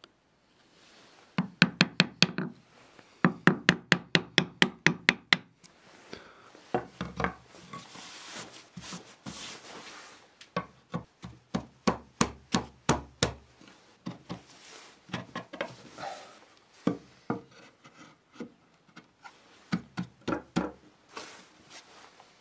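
Chisel being struck in quick light taps while chopping out dovetail waste, in two fast runs of about six taps a second. Later come scattered wooden knocks as the dovetailed boards are fitted together.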